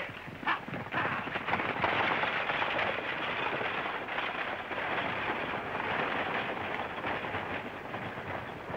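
Horses galloping: a fast, dense clatter of hoofbeats.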